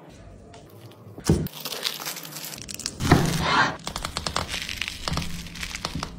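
Crackling and crinkling as a crisp egg-coated flatbread wrap stuffed with chicken is torn apart by hand, a cluster of sharp crackles loudest about three seconds in.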